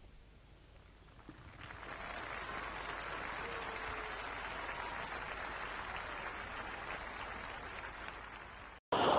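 Crowd of spectators applauding, faint at first and swelling about a second and a half in, then holding steady until it cuts off abruptly near the end.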